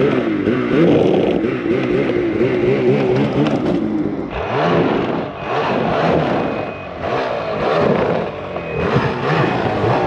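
Snowmobile engines running, the pitch wavering at first, then revved up and down several times from about four seconds in as the sleds are driven off a trailer.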